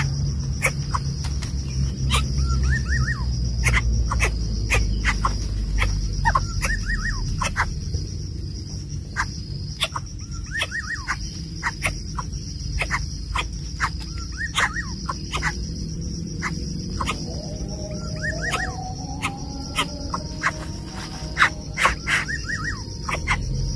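Outdoor nature ambience: a steady high insect drone, with a short burst of bird chirps repeating about every three and a half seconds and many sharp clicks. A lower wavering call joins briefly late on.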